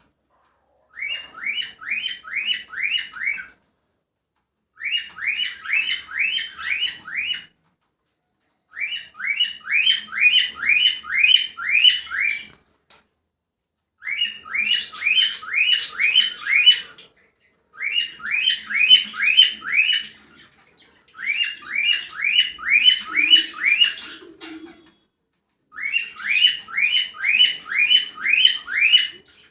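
Cockatiel chirping in quick strings of short, rising notes, about three a second, in seven bouts of two to three seconds with short pauses between.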